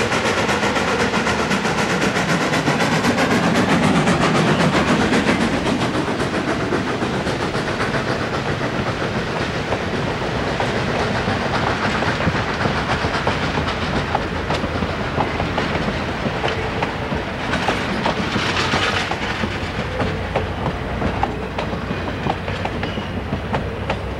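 Baldwin 2-8-2 steam locomotive passing close, loudest in the first few seconds, then its passenger coaches rolling by with the wheels clicking over rail joints. A brief hiss comes about 18 seconds in.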